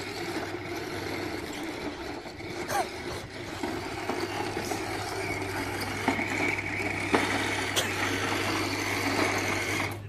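Toy remote-control tank's small electric drive motors and plastic gearbox whirring steadily as it drives, with a few sharp clicks.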